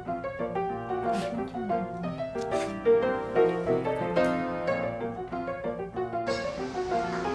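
Background piano music with many short notes.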